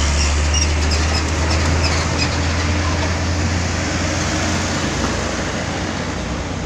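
A large truck's engine passing close and pulling away: a strong low drone that slowly fades, over steady road traffic noise.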